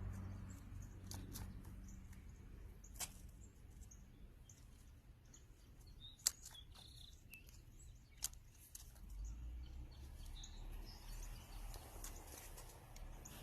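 Faint outdoor ambience with birds chirping now and then, and three sharp clicks, the loudest about six seconds in.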